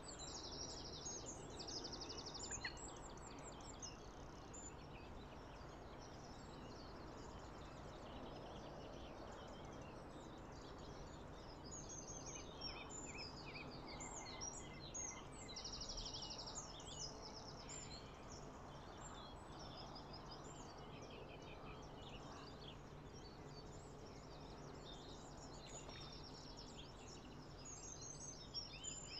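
Several small birds singing, with many quick chirps and a few fast trills, over faint outdoor background noise and a steady low hum.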